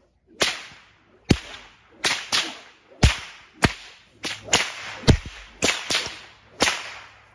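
Buckskin Florida cow whip cracking repeatedly: about a dozen sharp cracks, some in quick pairs, each with a short fading echo.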